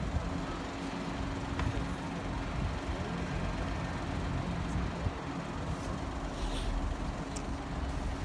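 Diesel engine of a Northern Class 158 diesel multiple unit running, a steady low drone over rumble.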